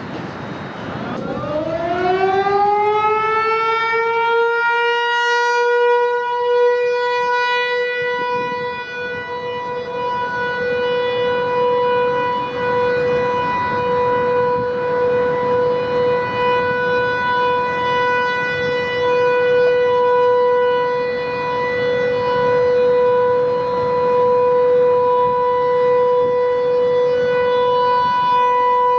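American Signal T-128 outdoor warning siren sounding a test. It winds up, rising in pitch over its first few seconds, then holds one steady, loud note whose loudness swells and dips gently.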